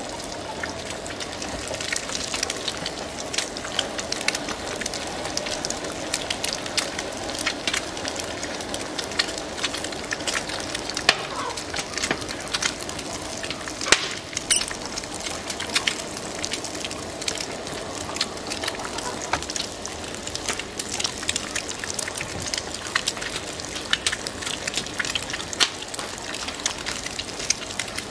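Wood fire crackling and popping inside a gas-stove body converted to burn wood, with an egg sizzling in a frying pan over a burner. Sharp pops come all through, one of the loudest about 14 seconds in, as sparks fly up.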